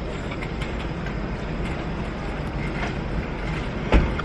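Steady low rumbling background noise with a few light clicks, and a single sharp thump near the end.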